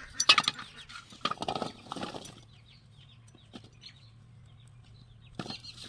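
A few short rustling, handling noises in the first two seconds, then faint bird calls over a low steady hum.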